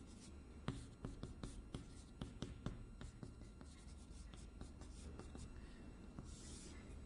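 Chalk on a chalkboard as characters are written: a quick, uneven series of light taps and ticks, with a longer scrape about six seconds in, over a faint steady low hum.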